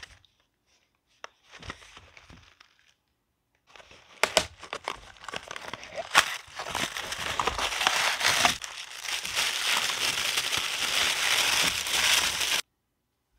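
Cardboard cosmetics box being handled and opened, with a few sharp clicks and scrapes, then tissue paper crinkling steadily and loudly for about six seconds as the products are unwrapped. The crinkling stops abruptly near the end.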